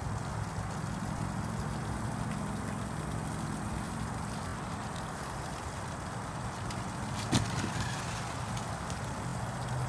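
A steady low hum like a running machine, with an even background noise over it. One sharp knock comes about seven seconds in.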